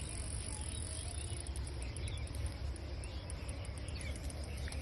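Insects chirping outdoors: a steady high-pitched trill with fast ticking, over a low steady rumble.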